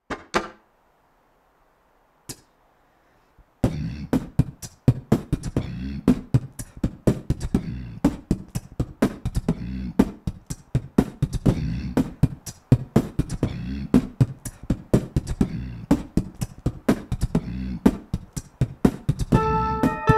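A repeating percussive beat of kick- and snare-like hits starts about three and a half seconds in, after a couple of soft clicks. Sustained guitar notes ring in near the end.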